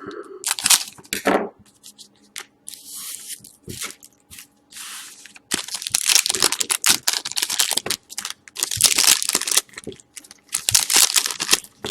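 Wrappers of 2012-13 Panini Certified hockey card packs being torn open and crinkled by hand, in a string of irregular tearing and rustling noises with short pauses.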